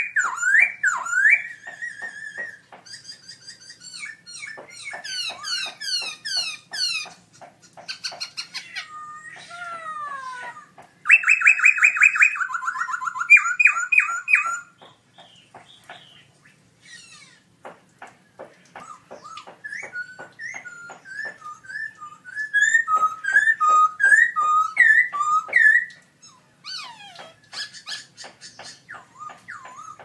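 Black-throated laughingthrush singing a long, varied song of clear whistles, gliding slurred notes and rapid repeated notes, loudest in a fast trilled run about eleven seconds in and a string of bright whistled notes past the twenty-second mark.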